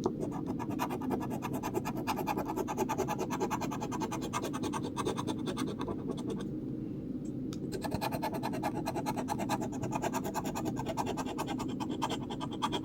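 Scratch-off lottery ticket being scratched: quick, continuous scraping strokes across the ticket's coating, with a short let-up about six and a half seconds in.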